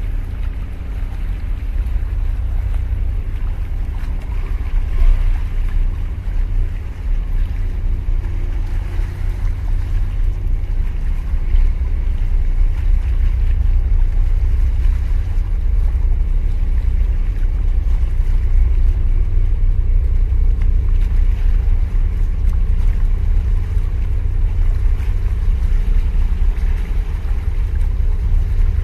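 Wind buffeting the microphone as a steady, fluctuating low rumble, with waves washing against concrete breakwater tetrapods.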